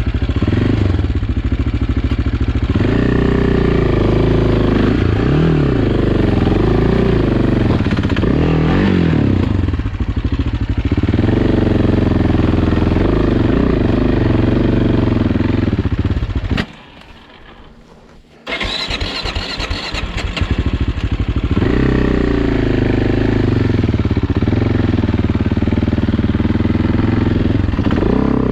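AJP PR7's single-cylinder engine running and revving up and down under way. About 17 seconds in it cuts out; after nearly two seconds of quiet the electric starter whines, the engine catches again and runs on.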